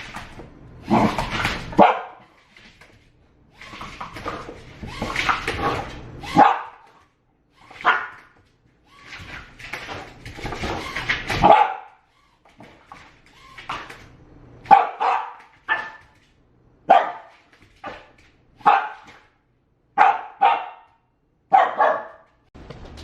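Dog barking repeatedly: long, rapid bouts of barking in the first half, then single sharp barks about every two seconds.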